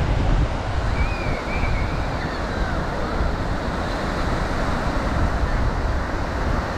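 Ocean surf washing on the beach, a steady rushing noise, with wind buffeting the microphone as a low rumble.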